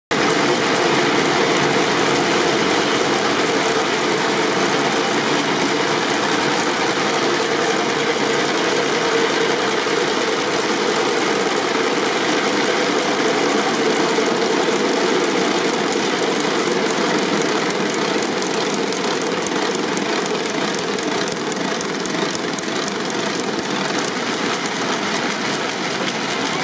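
A continuous clattering din of many hand rattles (ratchet noisemakers) cranked together by a crowd, dense and unbroken, easing a little near the end.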